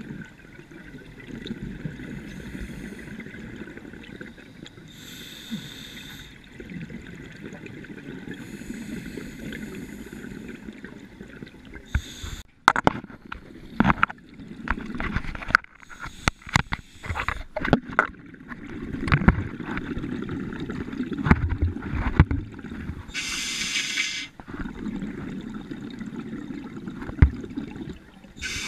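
Scuba regulator breathing heard underwater: a short hiss every few seconds and a bubbling rumble between. From about halfway, a run of sharp clicks and knocks, the loudest sounds here.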